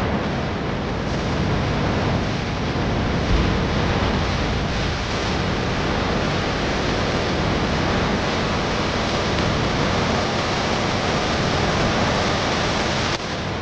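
Water running steadily from a tap into a washbasin, a constant even rush during face washing.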